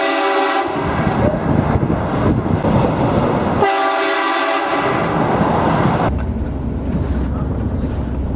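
Train horn blasting a chord of several steady notes. One blast cuts off about half a second in, and another of just under a second sounds nearly four seconds in, with loud rough noise between the blasts.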